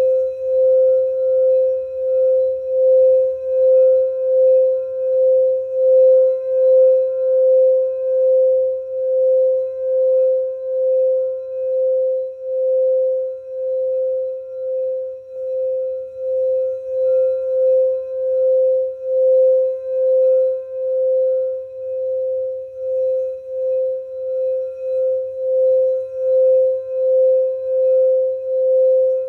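Singing bowl ringing with one steady, sustained tone that wobbles in loudness a little more than once a second.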